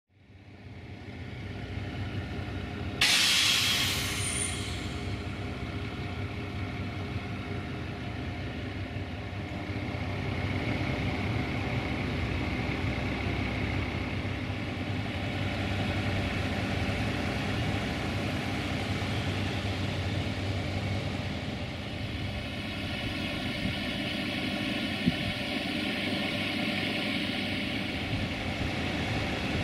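VT614 diesel multiple unit heard from on board: a steady diesel engine hum under rail and wheel noise, fading in over the first couple of seconds. About three seconds in, a short loud hiss of compressed air rises over it, then the steady running noise continues, with one sharp click near the end.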